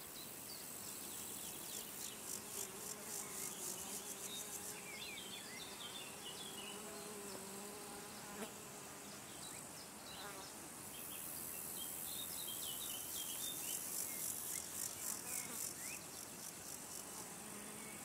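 Meadow insects: a very high, rapidly pulsing trill comes in two long spells, about a second in and again from about eleven seconds, and a flying insect buzzes steadily in between. Short high bird chirps are scattered throughout.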